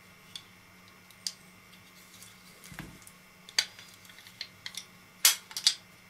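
Sharp plastic clicks and clacks from a black plastic-and-metal camera belt-clip mount being handled and worked, with a dull knock a little before halfway. The loudest clicks come in a quick cluster of three near the end.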